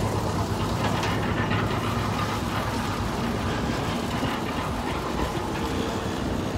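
Construction-site machinery engine running steadily: a continuous low hum under a wash of mechanical noise.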